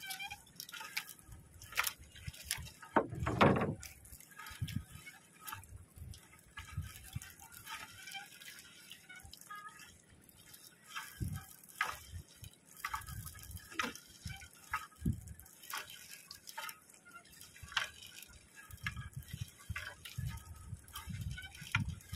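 Water dripping and splashing off a wet fishing net as it is hauled by hand out of the sea over a boat's side, in short irregular splashes; a louder thump about three and a half seconds in.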